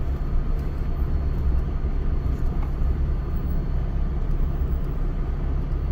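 Vehicle engine and tyres making a steady low rumble, heard from inside the cab while driving.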